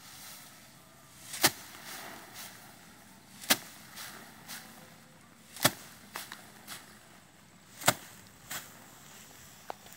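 Rice sheaves being beaten by hand against a slatted bamboo threshing rack to knock the grain off. Four sharp strikes come about two seconds apart, each followed by a lighter knock or two.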